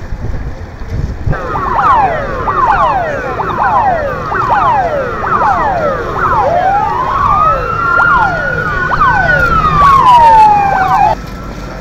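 Several sirens sounding together in quick falling yelps, about two a second, over a low rumble. About halfway a slow wail joins, rising and then falling, and all the sirens cut off suddenly near the end.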